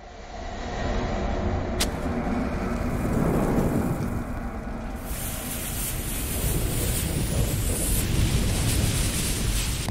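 Cinematic sound effects for an animated bomb-and-fire logo intro: a low rumble fades in, a sharp crack comes about two seconds in, and from about five seconds a loud hissing rush joins the rumble.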